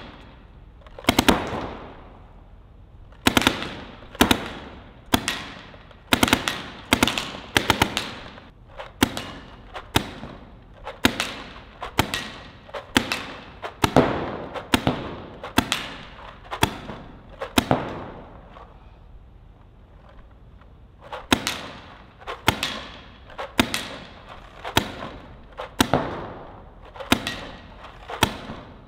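Paintball marker firing in quick bursts of two to four shots, burst after burst, each sharp and echoing in a large indoor hall, with a pause of about three seconds past the middle.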